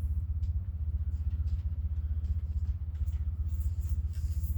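Steady low rumble with a fast, even pulsing, with a few faint clicks and rustles over it.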